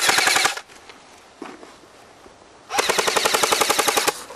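AK-pattern airsoft rifle firing full-auto: a short burst of about half a second, then a longer burst of about a second and a half, each a fast, even rattle of shots.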